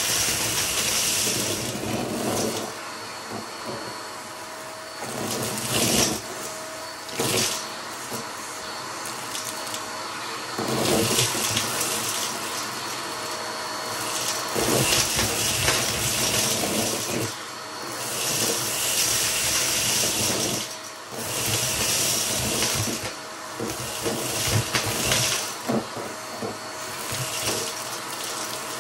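Vacuum cleaner running, its motor whine steady, while the rush of air swells and drops back every few seconds.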